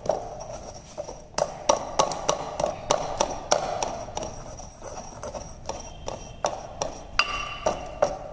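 Pestle pounding and grinding a powder in a porcelain mortar: a quick, even series of knocks, about three a second, each with a short ringing tone from the porcelain.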